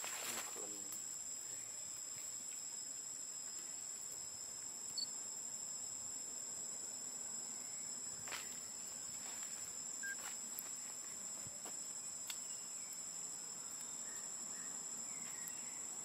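Steady high-pitched drone of forest insects, two unbroken tones held throughout, with a few faint clicks now and then.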